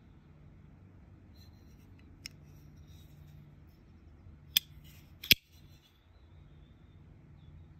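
Peter Rassenti Hogosha folding knife being worked by hand: a faint click about two seconds in, then two sharp metallic clicks less than a second apart, the second the loudest, as the blade swings open and locks.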